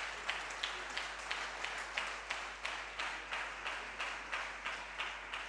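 Audience clapping together in a steady rhythm, about three claps a second.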